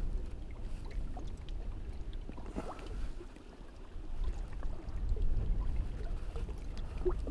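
Wind buffeting the microphone as a low, uneven rumble, with small waves lapping and splashing against the bank.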